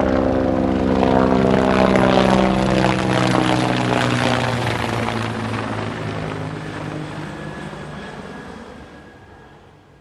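A helicopter flying past: rotor beat and engine whine, loudest in the first few seconds. Its pitch then drops as it passes and the sound fades away steadily.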